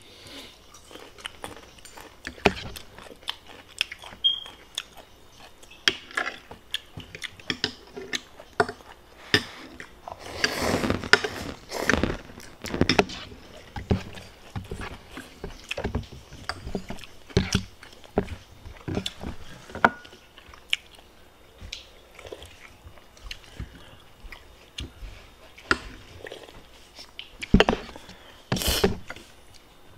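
A person biting and chewing food close to the microphone, with irregular crunches and clicks. There are a couple of louder, longer noisy stretches, about ten seconds in and near the end.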